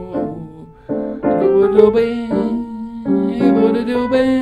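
Piano playing a slow jazz passage: left-hand chords under a sparse right-hand line built on only one or two notes. After a brief lull near the start, fresh chords come in about a second in and ring on.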